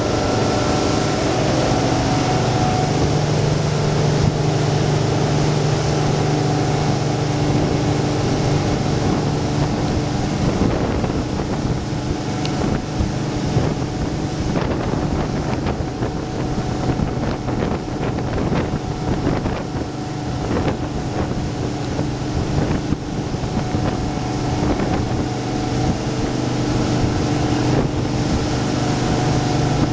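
A 24-foot Radon boat running at speed: a steady engine drone under the rushing, churning water of its wake, with wind buffeting the microphone.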